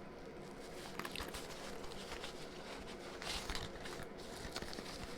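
Faint rustling and handling of a nylon tool pouch, with a few brief soft scuffs about a second in and again around three and a half seconds in.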